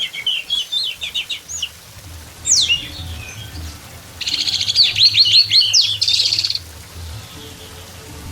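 Orange-headed thrush (anis merah) singing: a quick run of chirping notes, then a high whistle sliding down in pitch about two and a half seconds in. About four seconds in comes a dense, rapid burst of notes that lasts a couple of seconds.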